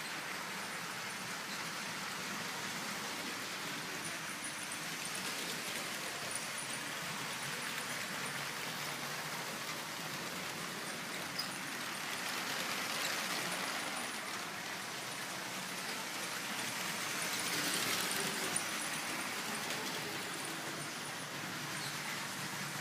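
Steady hiss-like background noise of an indoor exhibition room, swelling twice, with a couple of faint clicks.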